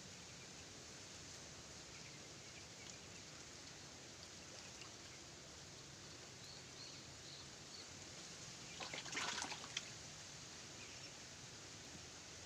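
Faint steady outdoor background, with a brief burst of water splashing about nine seconds in that lasts about a second.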